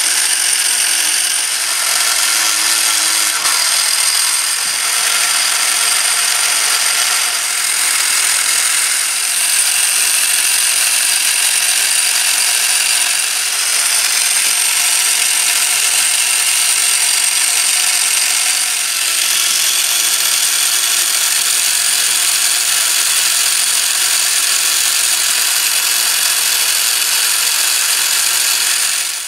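Meccano model Stothert & Pitt quarry crane's gear train and drive running, a steady mechanical whir with a high steady whine over it.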